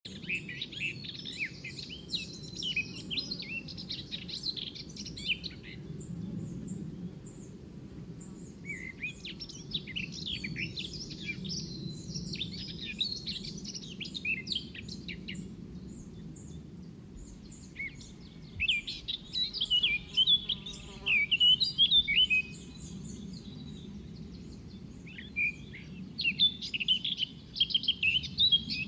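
Birds chirping and twittering in quick runs of calls several seconds long, with short pauses between, over a steady low background noise.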